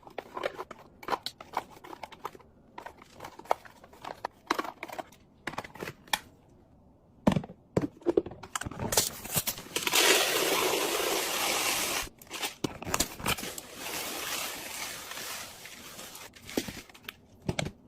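Fridge restocking: packaging crinkling and tearing, with many short clicks and taps as items are handled and set down. About ten seconds in comes a steady rush of noise lasting about two seconds, followed by a softer stretch of the same.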